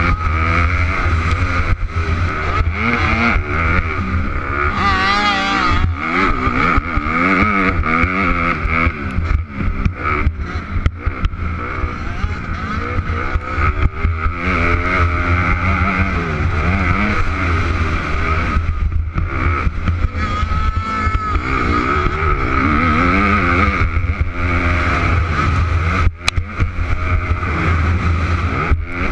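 Dirt bike engine heard from on board while riding a motocross track, its pitch climbing and dropping again and again as the rider accelerates, shifts and backs off the throttle.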